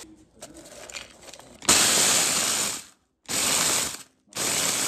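Small food chopper grinding graham crackers into crumbs in three short loud bursts, the first about a second long, with brief stops between them. Before that, quiet handling sounds as the crackers go into the jar.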